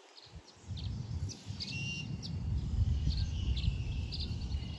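Birds chirping in short, high notes over a low rumble, with a faint steady high tone joining about a second and a half in.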